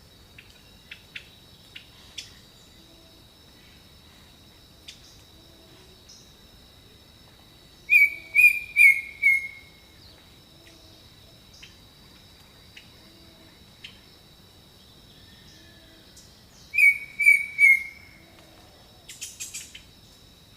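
Jungle birdsong: a loud bird call of four notes, each falling in pitch, sounds twice, over a steady high-pitched drone. Sharp single chirps come in the first few seconds and a rapid burst of short notes near the end, while a soft low call repeats about once a second underneath.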